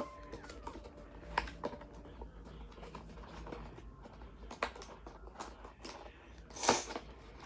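Cardboard box being handled: scattered light taps, clicks and scrapes of the flaps, with a short scraping rustle about two-thirds of the way through.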